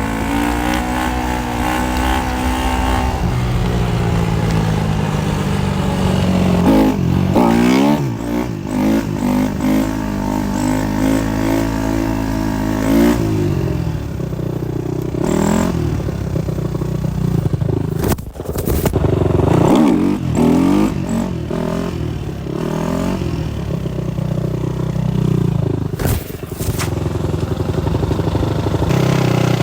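Supermoto motorcycle engine being ridden hard, revs climbing and dropping again and again through the gears, with a couple of sharp clicks partway through.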